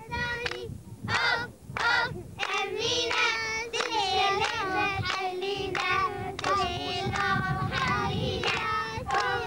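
A group of children singing together in high voices, clapping along.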